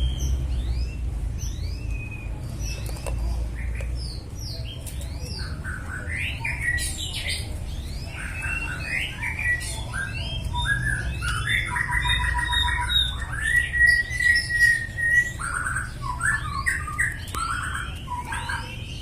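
White-rumped shama (murai batu) singing: short rising chirps at first, then from about six seconds in a busy run of varied whistles, rapid trills and a held note.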